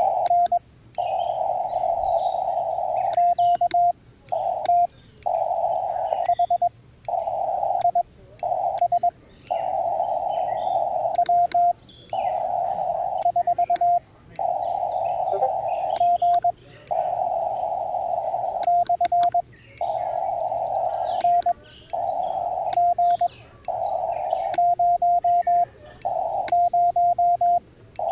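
Ham radio transceiver receiving 20-meter CW: band hiss through a narrow Morse filter in runs of a second or two, each ending in a short burst of fast Morse beeps on one tone, then a brief break, over and over. Birds chirp faintly in the background.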